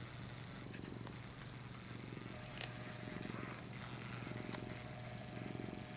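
A domestic cat purring quietly and steadily close by, swelling and fading with each breath.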